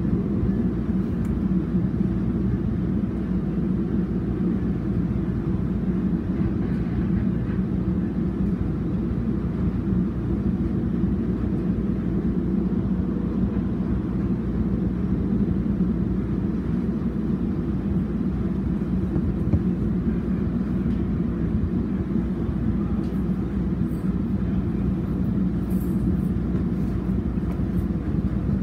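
Diesel train rumbling steadily: a continuous low drone with no clear change in level.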